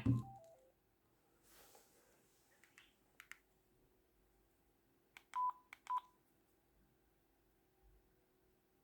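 A mobile phone's ringtone ends at the start with a few falling notes. Then come faint clicks and taps, and about five seconds in, two short single-pitch keypad beeps about half a second apart.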